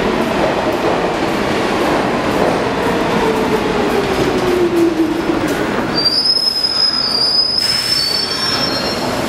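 Subway train braking into a station over the rumble of its wheels, with a whine falling steadily in pitch. About six seconds in, high wheel and brake squeals set in as it comes to a stop.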